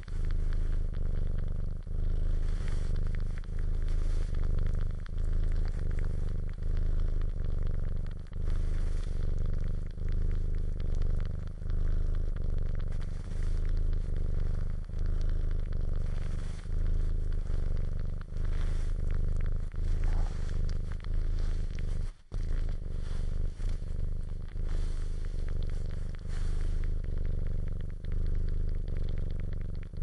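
A cat purring steadily and close up, the purr swelling and easing with each breath about every second and a half, with wet suckling and clicking noises over it. The purr breaks off briefly about two-thirds of the way through.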